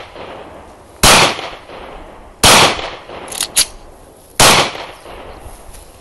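Three pistol shots from a .40 S&W Glock, fired one at a time about one and a half to two seconds apart, each trailing off in a short echo.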